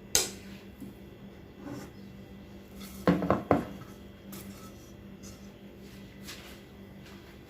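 A spoon knocking and scraping against a cooking pot while cooked semolina is spooned into a mashed chicken and potato mixture. There is a sharp knock at the start, a cluster of several knocks about three seconds in, and a few faint clicks in between.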